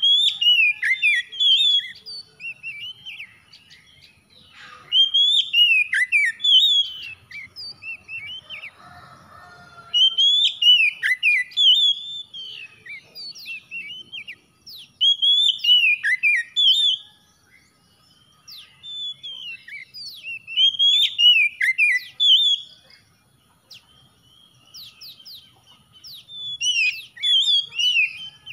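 Oriental magpie-robin (kacer) singing: loud phrases of quick, rising and falling whistled notes, about six bursts of song, each a couple of seconds long, with short pauses between them.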